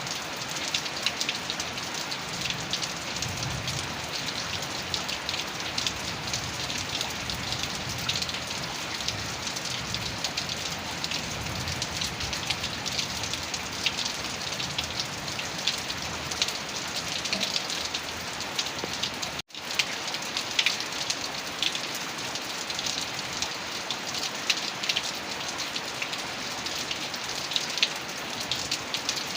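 Heavy rain falling steadily, a dense hiss with countless close drops pattering. The sound cuts out for a split second about two-thirds of the way through, then resumes.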